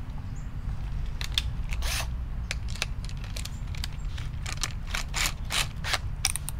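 Irregular clicks and rattles from a cordless drill with a paddle mixer being handled, its motor not running, over a steady low rumble.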